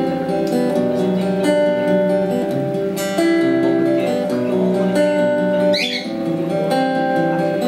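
Acoustic guitar playing an instrumental passage of a ballad, a steady run of picked and strummed chords and melody notes.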